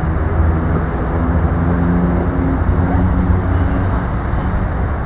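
Steady low rumble of road traffic, with an engine's drone swelling through the middle.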